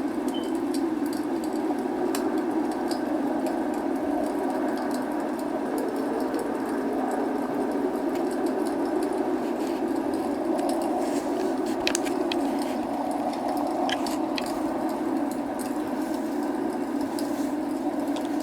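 Log fire crackling and popping over a steady hiss of rain, with a few sharper pops past the middle.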